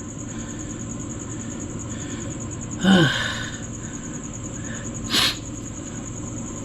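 Crickets trilling steadily in a high, even pulse. About three seconds in comes a short breathy voice sound falling in pitch, and about two seconds later a brief hiss.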